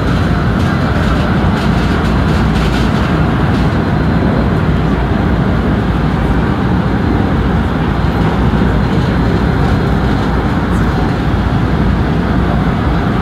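Steady running noise of a JR West 223 series electric train at speed, heard inside the front motor car: the rumble of wheels on rail and the traction equipment underneath. Another train passes alongside on the next track during the first few seconds.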